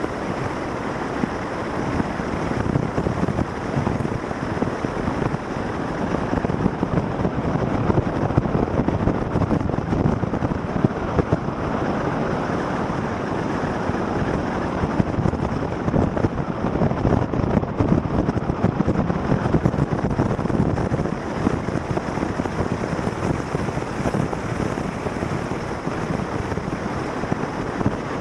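Wind rushing over the camera's microphone on a moving vehicle, mixed with the vehicle's road and running noise: a steady rush that swells a little and eases again, with no clear engine note.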